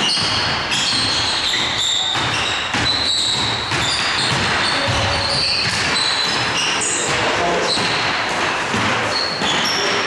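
Basketball game play on an indoor court: a ball bouncing as it is dribbled, and many short, high squeaks of sneakers on the court floor.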